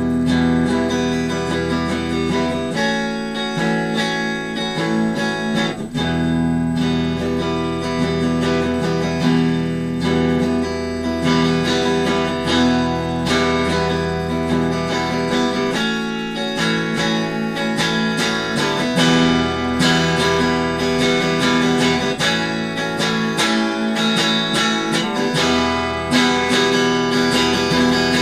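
Instrumental ambient desert-rock guitar music: a Squier Affinity Stratocaster played through a Fender Frontman 15G amp, strummed chords ringing on, the chord changing every few seconds.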